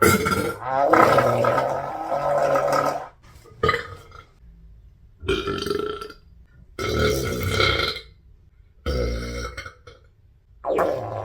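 A woman burping repeatedly from a bloated stomach: one long drawn-out burp of about three seconds, a brief one, then a run of burps about a second each with short pauses between.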